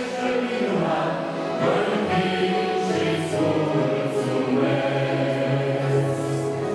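Choir and congregation singing a hymn together, accompanied by piano, with long held notes.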